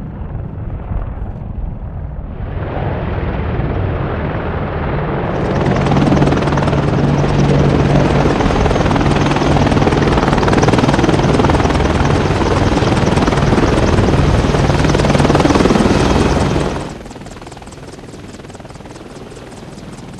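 AH-64 Apache helicopters' rotors and twin turboshaft engines running, first at a distance, then up close. The sound grows louder in steps a couple of seconds in and again about five seconds in. It is loudest with a steady low beat and a high turbine whine, then drops abruptly to a quieter drone about seventeen seconds in.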